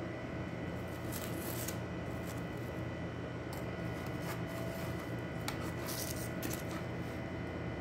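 A metal spatula scraping and tapping on a metal baking tray as baked bread rolls are lifted off, with short rustles of parchment paper, in irregular strokes over a steady background hum.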